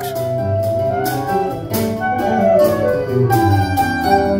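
Choro ensemble playing: a clarinet carries the melody in long held notes over a nylon-string guitar's plucked accompaniment.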